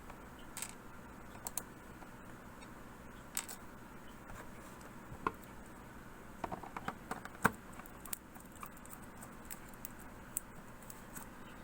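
Scattered small clicks and taps of a screw and screwdriver being handled against a laptop's plastic bottom case as it is screwed back together, with a quick run of clicks about six to seven seconds in, the loudest near seven and a half seconds.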